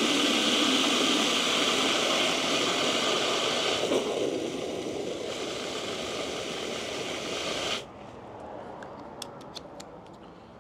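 Water running hard from an open garden hose, the nozzle popped off its quick connect, filling a bucket. It cuts off suddenly about eight seconds in, followed by a few light clicks.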